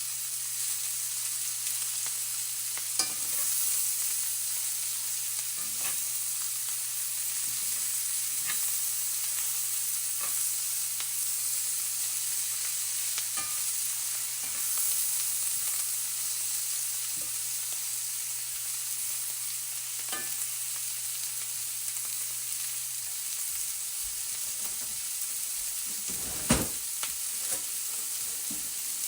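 Cabbage frying in a hot pan with a steady sizzle, stirred now and then, giving scattered knocks and scrapes of the utensil against the pan; the loudest knock comes near the end.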